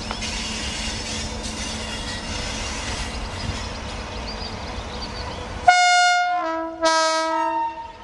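Air horn of a WAG-9 electric locomotive sounding two loud blasts of about a second each near the end, the second deeper than the first. Before the horn there is only a steady background noise.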